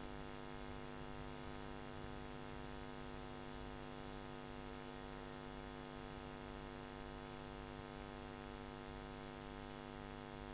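Steady electrical mains hum, a stack of even tones that does not change, in the microphone and audio system.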